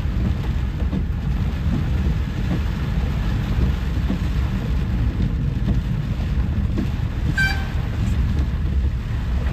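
Heavy rain on a car's windshield and roof heard from inside the cabin, over the steady low rumble of the car driving on a waterlogged road. A vehicle horn toots once, briefly, about seven seconds in.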